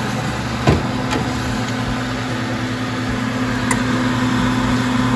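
Excalibur food dehydrator running, its fan giving a steady hum, with a sharp knock about a second in and a few lighter clicks as a tray of dried apple chips is handled.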